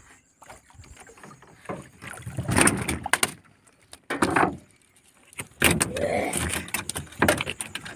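Handling noise in a small wooden boat as a baited hook line is hauled in by hand: irregular bumps and rustles that come in several loud bursts.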